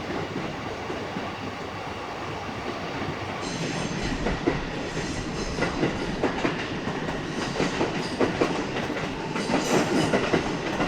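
A train passing, its wheels clattering over the rail joints; the rumble swells about three and a half seconds in.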